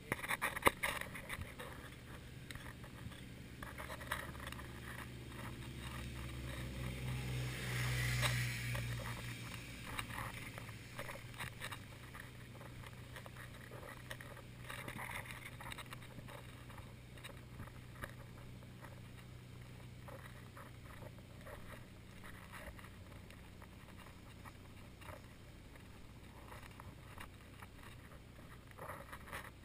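Footsteps crunching on a sandy path, with a low engine hum in the background that swells about eight seconds in and then fades back.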